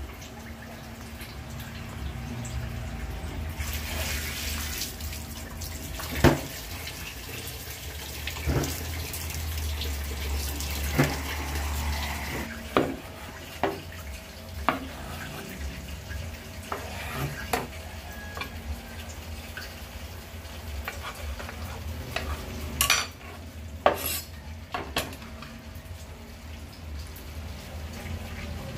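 Water from a tap running into a stainless-steel sink, with irregular sharp knocks of a knife striking a wooden cutting board as a tomato is cut into wedges.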